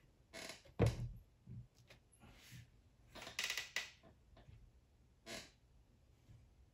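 Handling noises of a large paper label roll being moved and set down on a tabletop: a dull thump about a second in, then a scraping, rustling stretch around three and a half seconds in, and a shorter one near five and a half.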